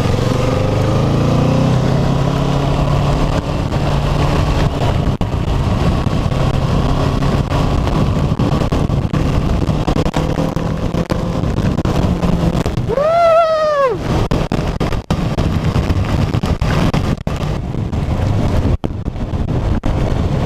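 Kawasaki motorcycle engine running on the move, its pitch shifting with the throttle, over a steady rush of wind and wet-road noise. About two-thirds through comes a short pitched note that rises and then falls.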